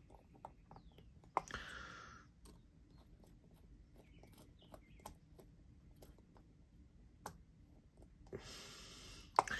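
Faint scattered clicks and ticks of a small Torx driver and tiny screws being worked into a folding knife's handle, with two sharper clicks, one about a second and a half in and one near the end. Two soft breaths follow those clicks.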